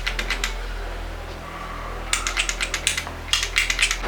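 Glass bangles clinking against one another as they are handled, in quick runs of small bright clicks: a short flurry at the start and a longer run in the second half, over a steady low hum.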